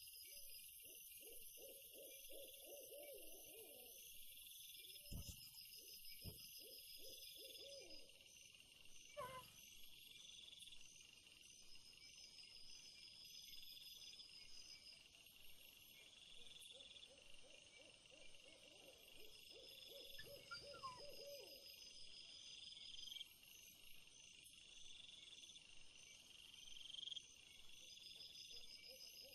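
Outdoor ambience with insects chirping in steady repeating pulses, and a low quavering hoot-like animal call twice, near the start and again about two-thirds through. A few faint dull thumps come around the middle.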